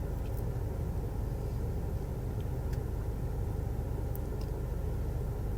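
Steady low rumble and hum, with a few faint light ticks.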